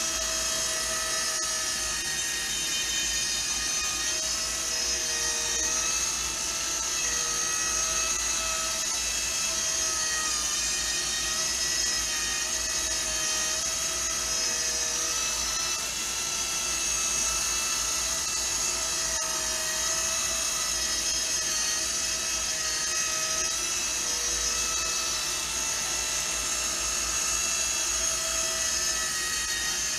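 Small electric motor of a cup turner running steadily, slowly turning a tumbler; a steady whine made of several tones that waver slightly in pitch.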